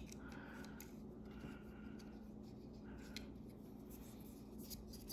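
Faint rubbing and a few light clicks from hands handling a Leatherman Surge multitool as its tools are worked and wiped.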